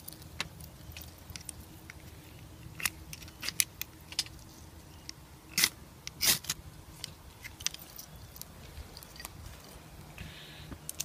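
Scattered light metallic clinks and short scrapes as a brass Trangia alcohol burner is handled and lit inside a small folding steel stove, with a cluster of clicks about three seconds in and one longer scrape about six seconds in.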